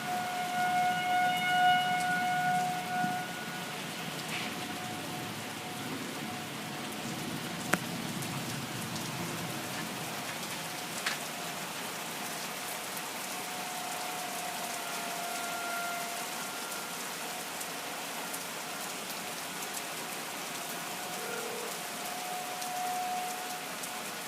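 Steady rain with an outdoor tornado warning siren holding one steady wail that swells and fades: loudest in the first few seconds, faint for a while, then louder again past the middle and near the end. Two sharp clicks stand out, about a third and halfway through.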